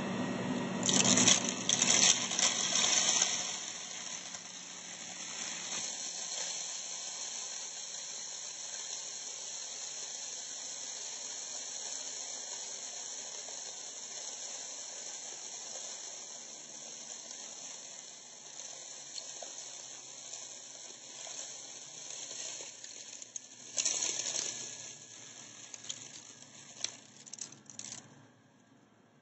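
Upright vacuum cleaner running over bath salt and rice on carpet, the grains rattling and crackling as they are sucked up. The crackling is loudest about a second in and again a few seconds before the end, and the sound falls away at the very end.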